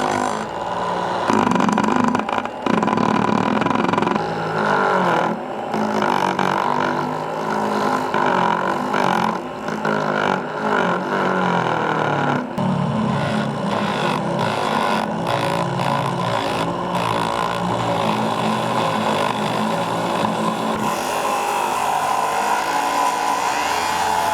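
Small electric motor of a homemade mini lathe running, its pitch shifting up and down.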